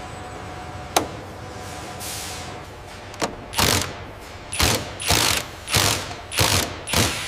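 Cordless power drills running in a string of short bursts, about one every half to one second, starting about three seconds in, over a steady hum. A single sharp click comes about a second in.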